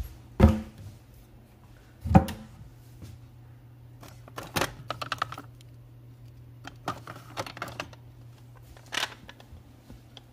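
Two heavy knocks as a wooden cabinet door is opened. Then come clusters of light clicks and rattles as a small storage drawer is pulled out and the dry-cell batteries inside it are handled.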